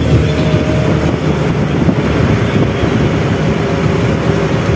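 Truck engine and road noise heard from inside the cab while driving, a steady low rumble.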